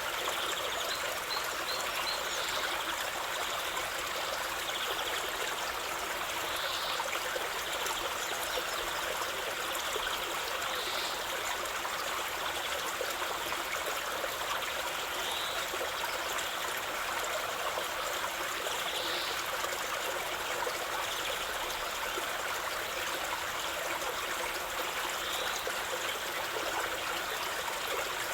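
Water flowing in a stream, a steady, even rush and trickle. A few faint short high sounds come every few seconds.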